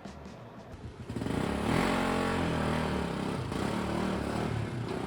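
A motor vehicle engine running close by in the street, starting about a second in, its pitch dropping a little as it passes and then holding steady.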